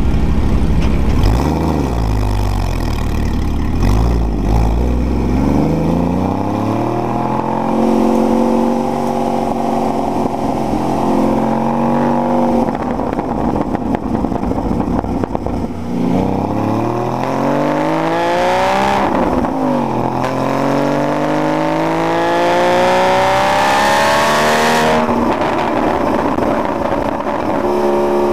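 Porsche sports car's engine heard from inside the cabin: a low rumble at first, then several rising runs through the gears of its manual gearbox, each broken by a drop in pitch at the shift. There is a sharper fall-off and pick-up partway through and a steady pull near the end.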